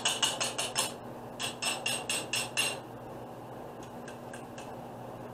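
Metal tongs tapping against a stainless steel bowl: a quick run of sharp clinks, about five a second, each with a brief metallic ring. There is a short break about a second in, and the clinks stop about three seconds in, leaving only a few faint taps.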